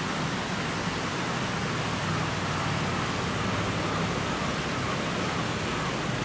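Steady rush of water flowing down a shallow canal, an even hiss with no breaks.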